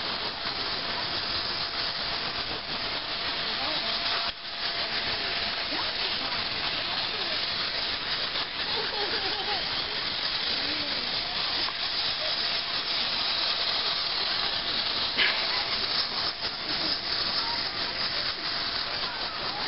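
Battery-powered Thomas the Tank Engine toy train running along plastic track: a steady whirring hiss from its motor and wheels, briefly dropping out about four seconds in. A child's voice is faintly heard in the middle.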